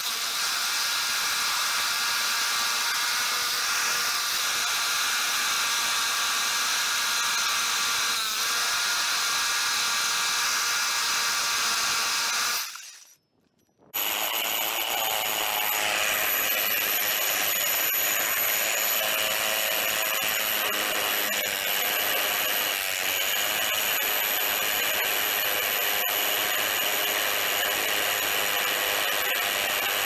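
Hammer drill turning a 4-inch core bit dry through a concrete curb: a steady, loud running with a high whine. It cuts out for about a second a little before halfway, then starts again.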